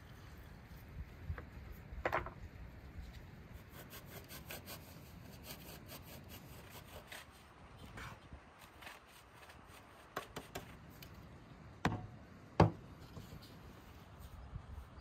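Fruit being grated on a metal box grater in repeated rasping strokes, with a fork scraping through grated fruit in a metal baking pan. Two loud sharp knocks about twelve seconds in.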